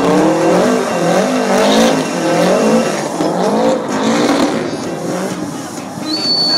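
Subaru Impreza STI's turbocharged flat-four engine revving up and down again and again as the car drifts, with tyre squeal. The engine pitch rises and falls about twice a second.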